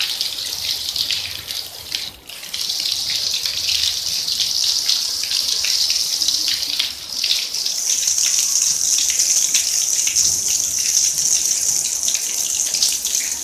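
Heavy rain falling and splashing on a concrete and grass yard, a steady hiss with many small drop impacts. It dips briefly about two seconds in and turns brighter and hissier from about seven seconds on.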